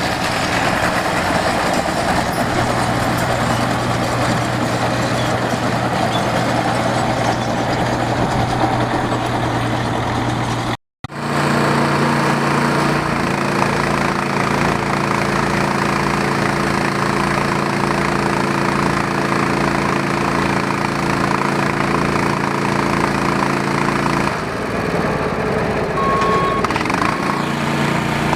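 Engine of hay baling equipment running steadily. The sound drops out for an instant about eleven seconds in and picks up again.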